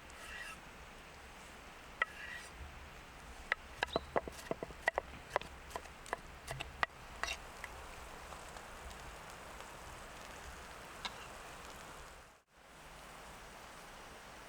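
A quick, irregular run of sharp taps and clicks lasting about five seconds over a steady outdoor background hiss, with one more click later on.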